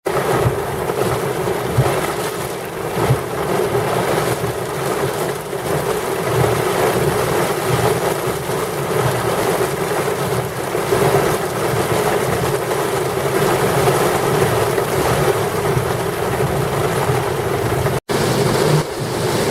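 Heavy rain pouring in a severe thunderstorm, with gusty wind: a dense rushing noise that swells and eases. It cuts out for an instant near the end.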